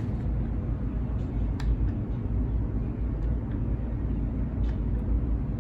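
Steady low rumble of room background noise, with a couple of faint clicks.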